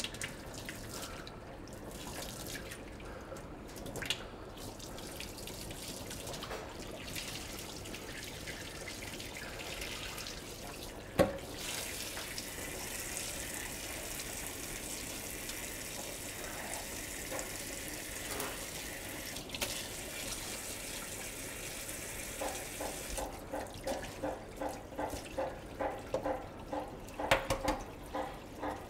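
Cold tap water running into a stainless steel sink, splashing over hard-boiled eggs being cooled and peeled under the stream. The water turns brighter and hissier from about twelve seconds in until about twenty-three. A single sharp knock comes about eleven seconds in, and a regular pulsing about twice a second runs through the last six seconds.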